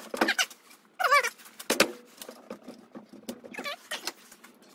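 A few short, wavering animal cries, one about a second in and another near the end, with a couple of sharp knocks and clinks.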